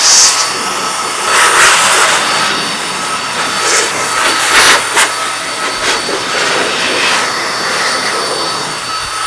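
RAYBAO 1300 W, 1.5 hp filtered car dryer blower running flat out: a loud rush of air over a steady high-pitched motor whine. It swells louder a few times as the blast is swept across the wet body panels of a freshly washed car, blowing the water off.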